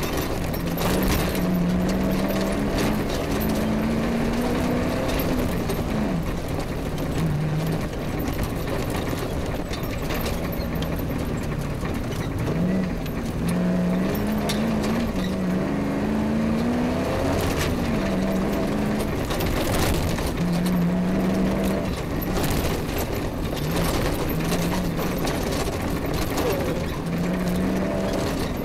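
Off-road rally car's engine working hard over rough grass tracks, its note rising and falling repeatedly with the throttle. Sharp knocks and rattles come through at times along the way.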